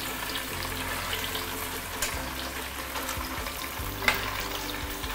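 Block of tofu deep-frying in oil on medium-high heat in a stainless steel pan, a steady crackling sizzle. About four seconds in, a spatula knocks once against the pan.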